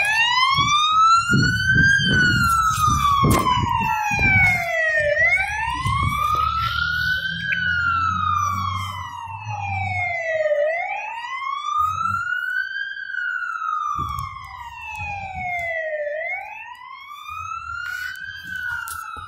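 Fire apparatus siren in a slow wail, rising and falling in pitch about every five seconds, with a low vehicle rumble underneath for roughly the first ten seconds.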